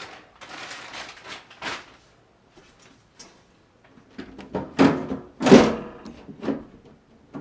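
A PC case's side cover being slid back on: sliding and scraping for the first couple of seconds, then, after a pause, a few louder knocks and rattles as the panel is seated, the loudest about five and a half seconds in.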